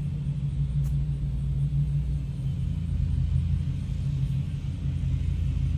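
A steady low motor rumble with a held low hum, with one faint click about a second in.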